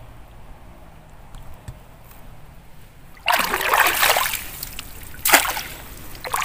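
A round mesh scoop net being worked through shallow muddy pond water among reeds, splashing. After about three quiet seconds comes a long splash, then a short sharp one about two seconds later, and another beginning near the end.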